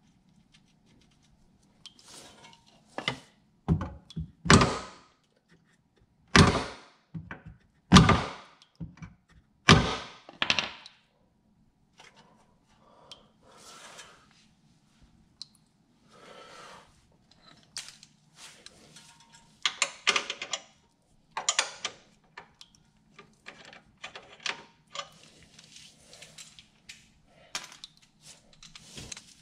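Irregular thunks, knocks and clinks of hand tools being handled against metal and set down while working under a car, with a run of sharper knocks in the first half and a few more about two-thirds through, over a faint low hum.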